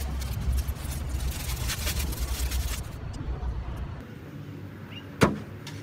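Aluminium foil crinkling as a foil-wrapped food parcel is pressed into a car's engine bay, over a low rumble. About five seconds in, the car's bonnet slams shut with a single loud thud.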